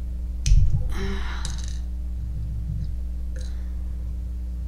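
A sharp metal click about half a second in, then a short scraping rustle, over a steady low hum: a padlock being worked apart with an Allen wrench.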